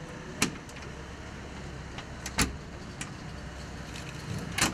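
A padlock and its keys clicking and clinking against a metal door hasp as it is locked, with three sharp metallic clicks about two seconds apart and lighter taps between them.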